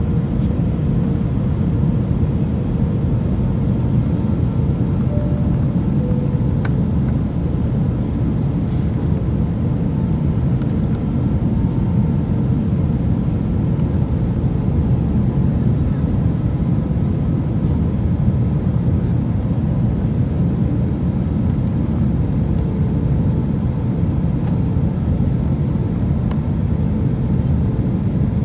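Steady cabin noise of an Airbus A321-200 on approach with flaps extended: a low, even rumble of engines and airflow, heard from inside the cabin behind the wing.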